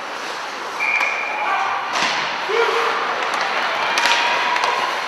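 Ice hockey game sounds: a steady hubbub of voices with shouts, broken by a few sharp knocks of sticks and puck, about two and four seconds in.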